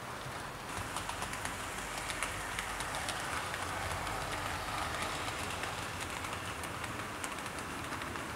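00 gauge model train running on the track: a steady rolling rumble with many small clicks of wheels over rail joints, getting louder about a second in.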